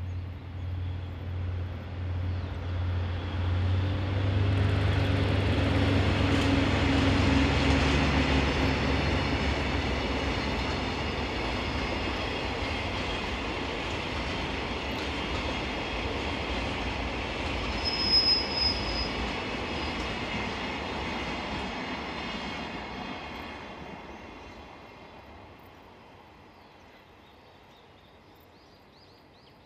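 DD51 diesel-hydraulic locomotive, with its twin V12 diesel engines, slowly notching up to accelerate at the head of a container freight train as it passes; the pulsing engine note is loudest about four to nine seconds in. The container wagons then roll by with an even rumble and wheel clatter, a brief high wheel squeal about eighteen seconds in, and the train fades away over the last few seconds.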